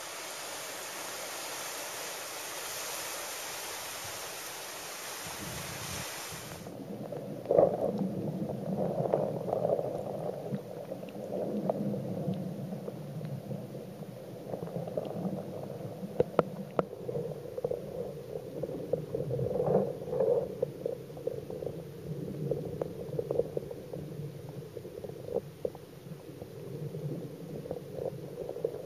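Seaside wind and surf hiss heard above water. About six seconds in the sound turns muffled and low as the waterproof camcorder goes under the sea. From then on there is murky underwater sea noise with irregular sharp clicks and bubbling.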